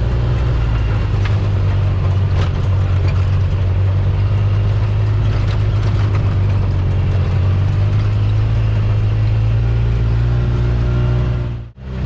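A car being driven, heard from inside: a steady low engine and road hum. It cuts out briefly near the end.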